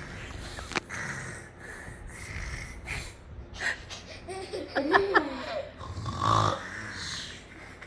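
A person making exaggerated fake snores on purpose, several breathy snores in a row, to teach a child to snore. A short laugh comes about five seconds in.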